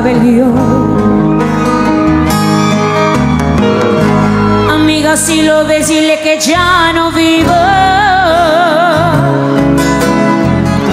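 Woman singing live into a microphone over acoustic guitar accompaniment, with a long held note sung with wide vibrato about three-quarters of the way through.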